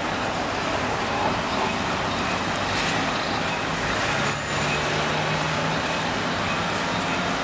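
Street traffic: the steady noise of passing vehicles. About four seconds in there is a brief high squeal, and then a heavy vehicle's engine runs with a low steady drone.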